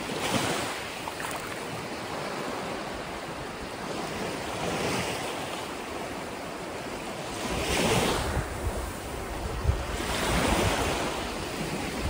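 Small sea waves breaking and washing up a sandy shore at the water's edge, swelling about four times. From about halfway through, wind buffets the microphone.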